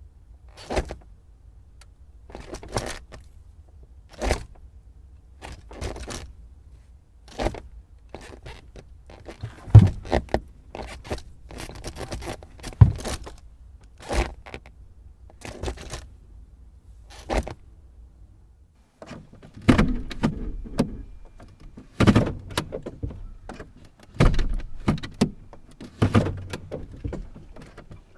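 Car gear lever being shifted through the gears, a series of clicks and clunks about one every second or two, coming closer together and heavier near the end.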